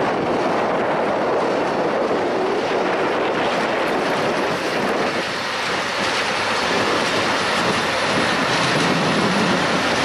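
A Soviet-built 'Ludmilla' diesel locomotive of the DR class 232 family passing with a train of flat wagons: the engine running and the wheels rolling on the rails in a steady, continuous rush.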